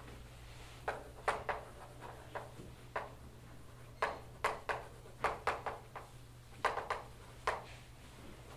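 Chalk writing on a blackboard: a string of short, irregular taps and scratches, a few clustered closely together, over a steady low room hum.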